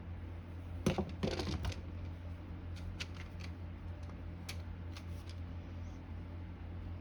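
Metal parts and hand tools being handled while the terminal box plate comes off a vintage General Electric motor: a short cluster of knocks and scrapes about a second in, then a few scattered light clicks, over a steady low hum.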